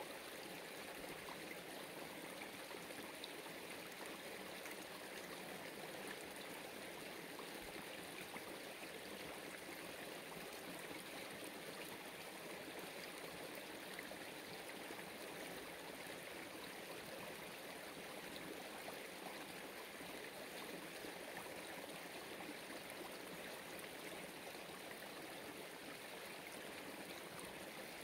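Steady running water of a small stream or brook, an even babbling rush with no breaks.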